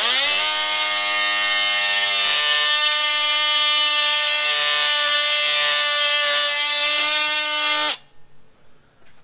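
DeWalt oscillating multi-tool cutting a piece of AirStone faux stone. The motor whine rises in pitch at the start, then holds a loud, steady high buzz while the blade cuts, and stops suddenly about a second before the end.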